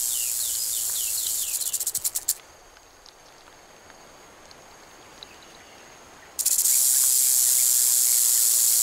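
Rattlesnake shaking its tail rattle in a continuous high buzz, a defensive warning to keep away. The buzz breaks up into a few separate clicks and stops about two seconds in, then starts again, loud, about six and a half seconds in.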